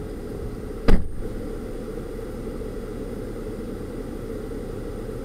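Steady low rumble of engine and road noise inside a Dodge minivan's cabin, with a single sharp thump about a second in.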